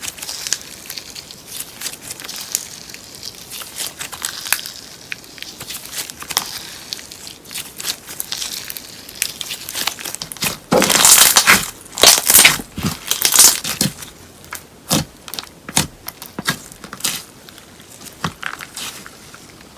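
Slime being kneaded and stretched with paper clay mixed in, giving a run of small crackles and crinkly pops, densest and loudest from about eleven to fourteen seconds in.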